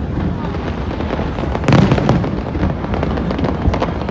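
Fireworks display: a steady crackling of many small bursts over a low rumble of shells, with a louder boom about a second and a half in.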